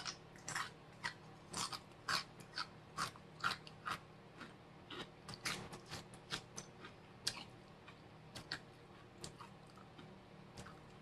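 Close-miked chewing of crunchy spicy chips: irregular crunches about twice a second, growing softer and sparser in the second half.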